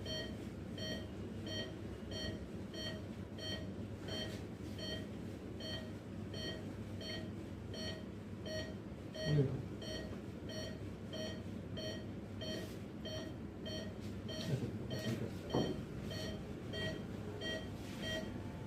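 Patient monitor in an operating theatre beeping evenly about twice a second, the pulse tone that sounds with each heartbeat, over steady room noise.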